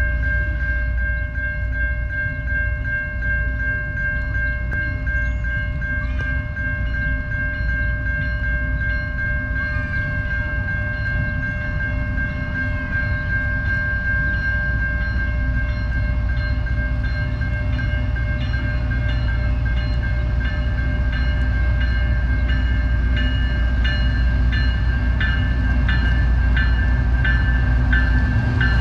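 Canadian National diesel freight train approaching, its low locomotive rumble growing steadily louder. Steady high ringing tones are heard throughout, and regular clicks come about once a second over the last ten seconds or so.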